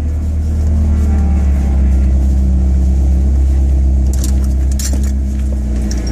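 Honda Integra DC2's four-cylinder engine idling steadily, heard from inside the parked car, its pitch drifting up slightly and settling back. A couple of brief light rattles between four and five seconds in.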